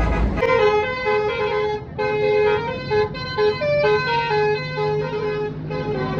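Basuri musical bus horn (telolet) playing a fast melody of short stepped notes, starting about half a second in. A low steady hum joins underneath from about halfway.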